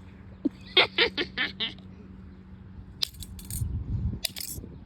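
Metal handcuffs clinking and rattling as they are struck and handled: a quick run of about five ringing clinks about a second in, then sharper knocks and a scraping rattle near the end.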